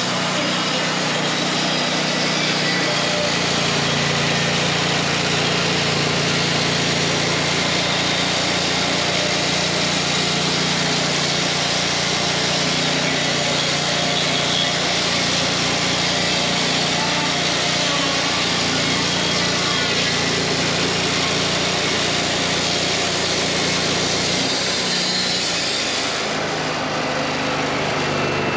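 Wood-Mizer LT40 Wide bandsaw mill running steadily, its band blade cutting through a hickory log with a high hiss over the engine's drone. The cutting hiss fades near the end while the engine keeps running.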